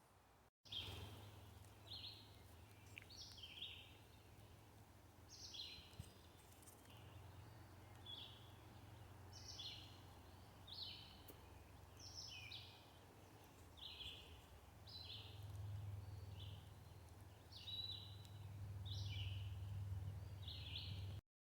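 Birds calling: a string of short, high chirps, about one a second, over a low steady rumble of wind on the microphone.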